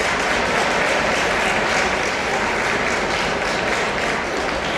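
Audience applauding steadily, dense clapping with no break.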